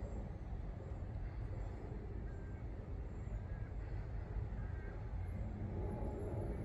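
Steady low rumble of distant road traffic, with a few faint short high chirps scattered through it.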